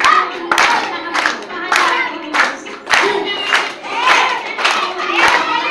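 Voices singing a song together with sharp hand claps keeping the beat, about two a second.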